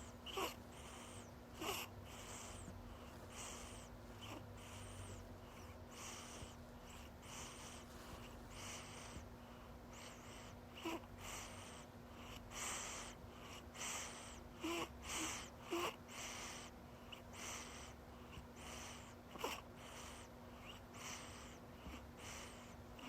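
A young child's rapid, noisy breathing, about one breath a second, each breath a soft hiss with now and then a short squeaky note. A steady low hum runs beneath.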